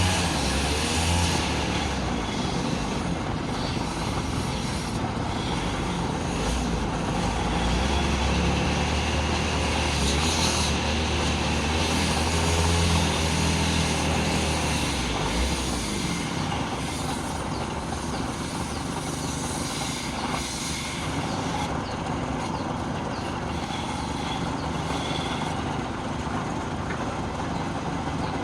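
Wood lathe running while wood is turned, a steady machine noise with a strong low hum that drops away about halfway through.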